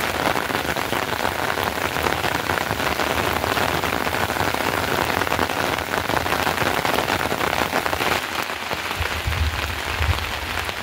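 Steady rain falling on a plastic tarpaulin shelter, with a low rumble near the end.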